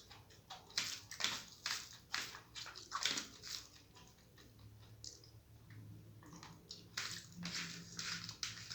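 Close-miked wet chewing and mouth smacking from someone eating rice mixed with masoor dal. The clicks and squelches come in irregular bunches, with a quieter stretch in the middle.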